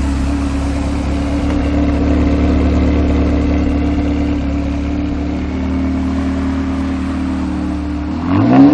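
Ferrari 360 Modena's 3.6-litre V8 idling steadily, then revved near the end, its pitch climbing quickly as it gets louder.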